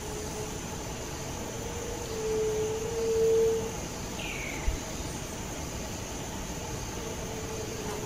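A steady low hum, with a faint high whine above it, that swells for a couple of seconds in the middle. A short falling bird chirp comes just after it, followed by a brief low thump.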